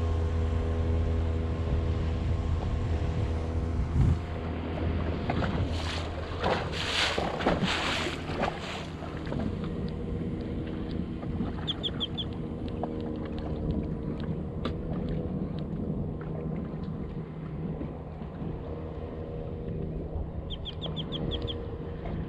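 Boat motor running at low speed with a steady low hum. A few seconds of loud rushing noise come about six seconds in, and two short strings of quick high beeps sound near the middle and near the end.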